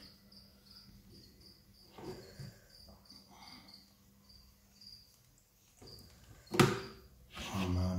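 Crickets chirping: a steady run of short, high chirps, about three a second. Near the end a single loud, sharp knock, followed by handling noise.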